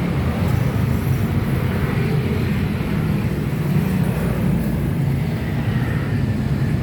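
Yamakoyo ZS1130G single-cylinder diesel engine running steadily, a dense rapid low chugging with no change in speed.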